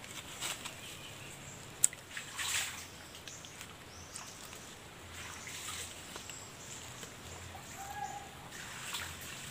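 Young coconuts (buko) being opened and scraped by hand: scattered scrapes and clicks on husk and shell, with one sharp click about two seconds in.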